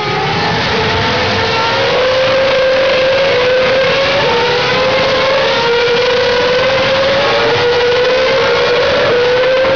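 Formula 1 cars at full throttle streaming past one after another, the engine note climbing steadily and dropping sharply at each upshift, about three times.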